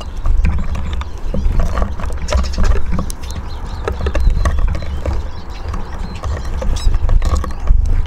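Eurasian siskins feeding on a wooden bird table: irregular quick taps and clicks of beaks and feet on the wood and the seed dish, with wing flutters as birds land and leave, over a steady low rumble.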